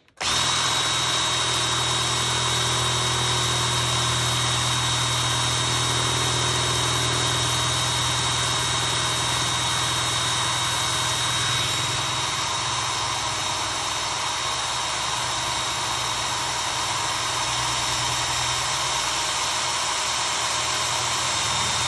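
Power drill with a TCT bit boring into the brass plug of an Ultion 3-star euro cylinder near the shear line, running steadily with a high whine. It comes up to speed at once and stops just at the end.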